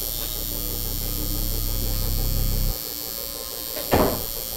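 Electric tattoo machine buzzing steadily while inking skin, then cutting off abruptly about two and a half seconds in. A brief, sharp sound follows near the end.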